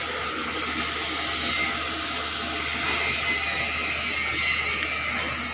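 Steady outdoor hiss with no distinct events, swelling and easing a couple of times.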